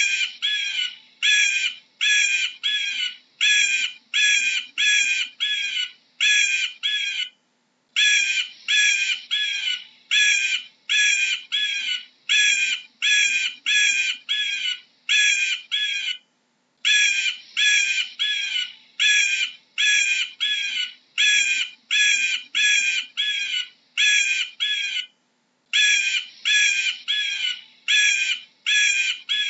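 An eagle calling: a long run of short, high, chittering notes, two to three a second, broken off briefly three times.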